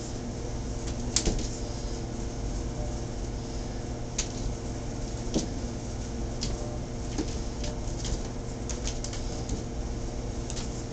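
Irregular light clicks and taps of a cat's paws and claws on a vinyl tile floor as it pounces and skids, over a steady low hum.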